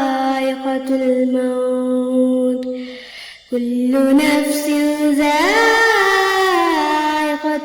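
Melodic Quran recitation by a single voice, drawing out long held notes in the chanted tajweed style. It breaks off for a breath about three seconds in, then rises into a new ornamented phrase.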